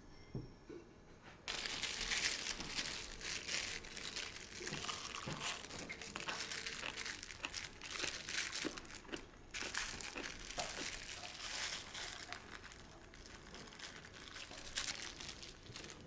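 Clear plastic wrap crinkling around a toasted sandwich as it is handled, starting suddenly about a second and a half in.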